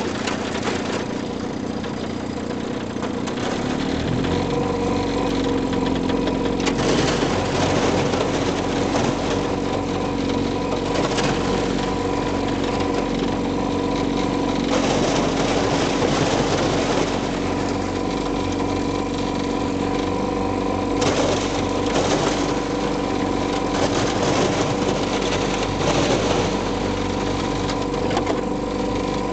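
Boat outboard motor running steadily, picking up speed about four seconds in, with repeated bursts of crunching and grinding as the hull breaks through thin lake ice.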